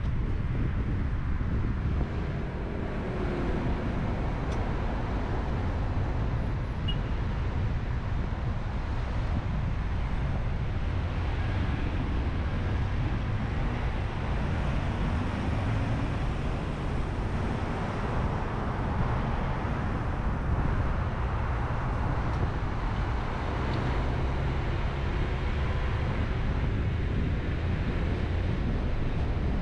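Steady road and traffic noise of a car driving on city streets: low rumble of tyres and engine with a noisy hiss over it. Faint engine tones rise and fall a few times.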